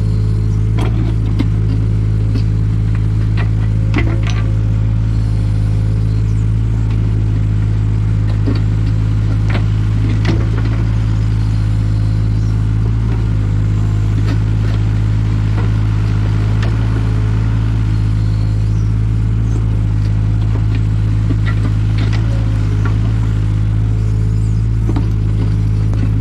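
Takeuchi TB216 mini excavator's diesel engine running steadily at a constant speed, with scattered clatter and knocks as the toothed bucket works through stony topsoil.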